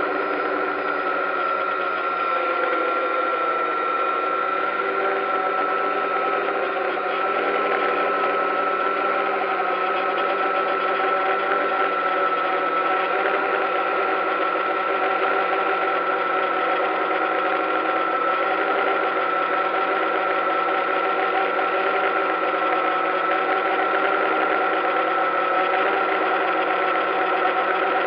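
DJI Phantom quadcopter's electric motors and propellers whining steadily in flight, picked up close by the drone's own camera. A strong high whine sits over several lower tones, wavering slightly in pitch as the drone adjusts.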